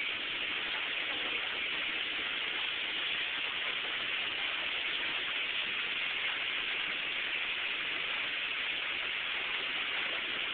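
Steady rushing hiss without breaks.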